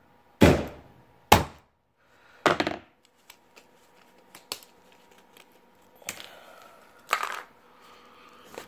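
Small hammer banging on a plastic anti-theft clothing security tag to break its casing open. Three hard blows come in the first three seconds, then a few lighter knocks and small clicks of the tag's pieces.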